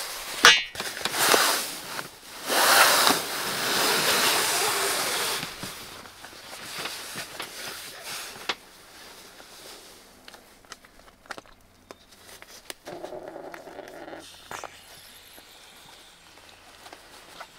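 A KingCamp self-inflating sleeping pad being handled: a sharp snap about half a second in as its strap is released, then a few seconds of loud nylon rustling as it is unrolled and moved. Quieter clicks and scrapes follow as its plastic valve caps are worked.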